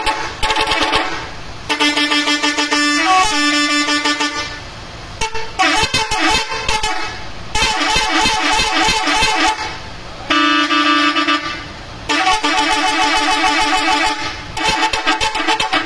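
Bus 'telolet' horn, a multi-tone musical horn playing short melodic phrases: a string of loud blasts, each about two to three seconds long, with the pitch stepping between notes.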